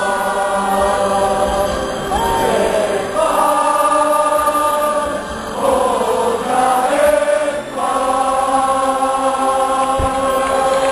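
Football supporters in a stadium end singing a slow chant together in unison, many voices holding long notes with occasional slides between them.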